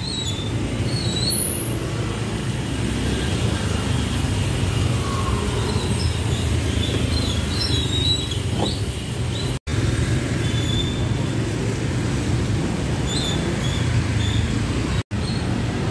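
Street traffic: motor scooters and cars running along a wet road, a steady low rumble. The sound cuts out for an instant twice in the second half.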